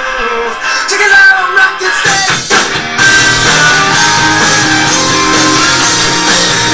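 Rock music playing loudly, with drums and guitar; the music fills out with a heavier low end about two seconds in.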